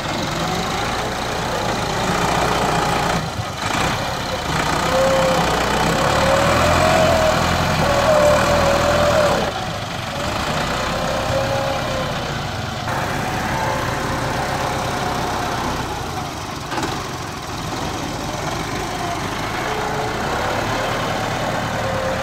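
Massey Ferguson tractor's diesel engine running under load as its front loader digs and lifts a bucket of manure, with a whine that rises and falls as the engine speeds up and slows; it is loudest for several seconds near the start, then settles.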